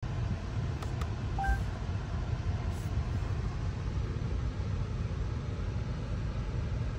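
Inside the cabin of a BMW X5 50e as its parking assistant takes over and reverses the car: a steady low rumble, with two short clicks about a second in and then a short rising two-note chime.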